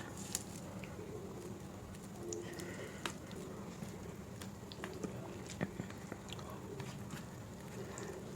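Close-up chewing and wet mouth sounds of someone eating soft food, rice with dal and mashed vegetable curries, with scattered small sharp clicks.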